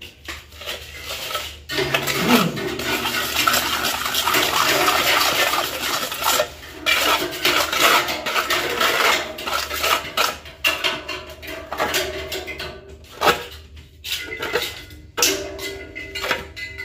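Steel trowel scraping and striking off wet mortar across the top of a metal cube mould, in repeated uneven strokes of metal grating on metal and mortar. The scraping starts in earnest about two seconds in.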